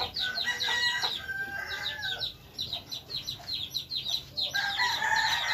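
Chickens clucking amid many quick, high chirps, with a longer held call near the end.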